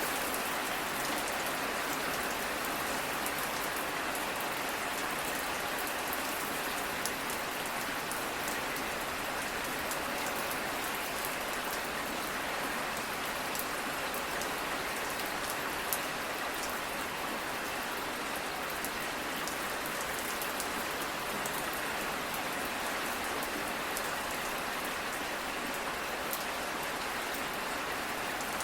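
Steady rain falling, with fine drops pattering on a surface.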